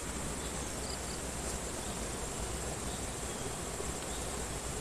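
Steady, unbroken high-pitched insect drone over a continuous even hiss of the flowing river.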